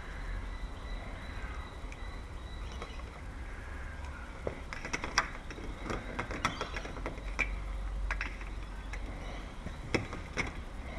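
Scattered sharp clicks and light knocks of small metal lock parts being handled and tried in place, starting a few seconds in, over a steady low rumble.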